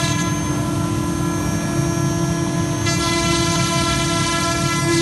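CNC router spindle running at a steady pitch with a whine of many overtones, its bit milling through chipboard with a rough cutting noise underneath.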